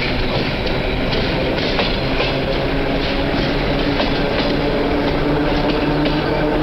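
Elektriraudtee electric multiple unit passing close by: a steady loud rumble of the cars with irregular clicks from the wheels over the rails and a steady hum running through it.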